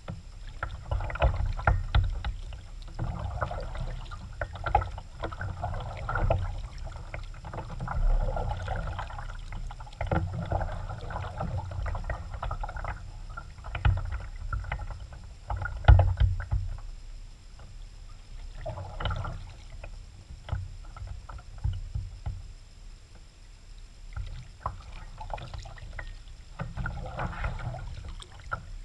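Kayak paddling: the paddle blades dip and splash in the water in irregular bouts, over a low rumble, with a few sharp knocks against the hull.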